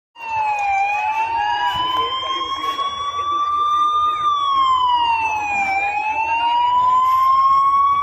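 Fire engine siren wailing loudly, its pitch sliding slowly: a short dip, a rise lasting about three seconds, a fall of about a second and a half, then another slow rise.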